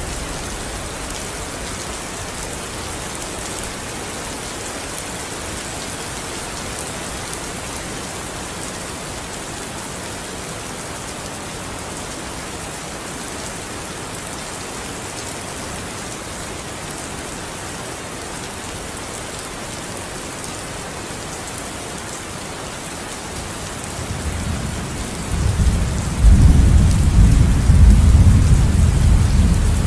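Steady rain falling, an even hiss. About 24 seconds in, a deep rumble of thunder builds and grows loud, continuing over the rain.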